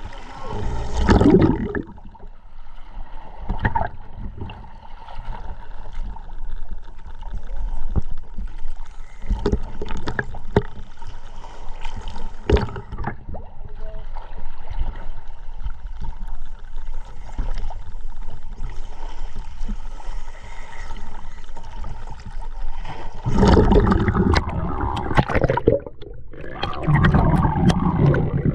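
Scuba divers' exhaled bubbles gurgling underwater in irregular surges, loudest near the end, with scattered knocks and clicks.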